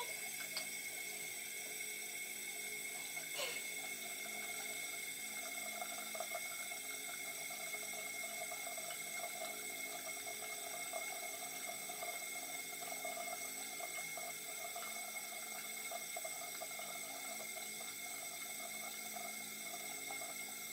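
Tap water running steadily into a bathroom sink, with a faint steady high whine over it.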